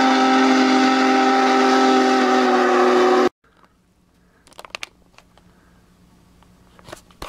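A train whistle sounding a steady chord of several notes, cutting off abruptly about three seconds in. Then faint clicks over a low hum.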